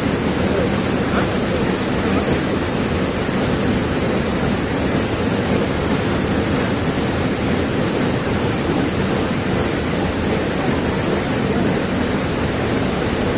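Waterfall and river water rushing steadily, a constant loud hiss-and-roar of falling water without change.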